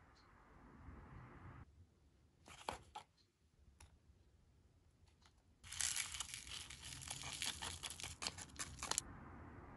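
A foil candy-powder sachet crinkles briefly as it is handled, then is torn open and crinkles continuously for about three seconds as its powder is shaken out into a plastic tray.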